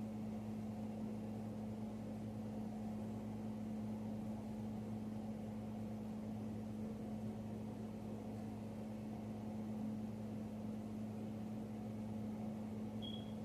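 Steady, unchanging low mechanical hum with a faint hiss, and one short high tone near the end.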